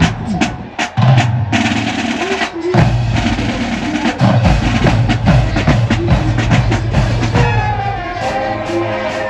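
High school marching band drumline playing, with snare rolls over bass drums. The brass comes in with a held chord about two-thirds of the way through.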